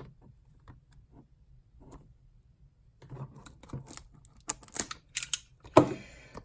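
Trading card box packaging being handled: scattered light clicks and taps, turning to busier crinkling and rustling in the second half, with a louder knock near the end.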